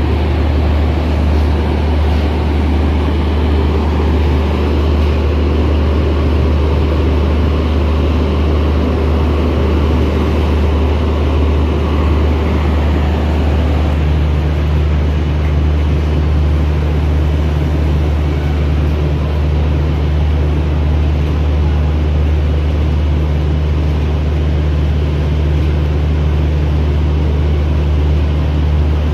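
Steady low hum of diesel engines running at idle on the standing trains, with no pulses or sudden sounds. Its pitch shifts slightly about halfway through.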